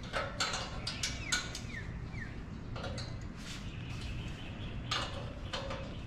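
Small birds chirping in short, scattered calls, a few of them quick falling notes, over a low steady background hum.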